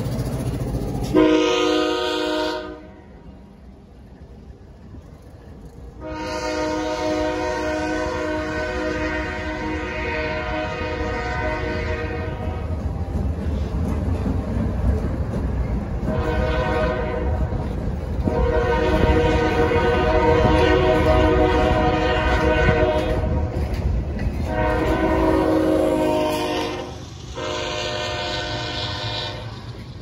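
Multi-tone air horn of a CSX GE freight locomotive sounding a series of loud blasts: a short one about a second in, two long ones, then two shorter ones near the end. Under the horn runs the low rumble of the passing locomotives and train.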